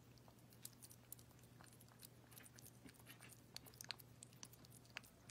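Cat eating wet food from a small bowl: faint, irregular chewing clicks.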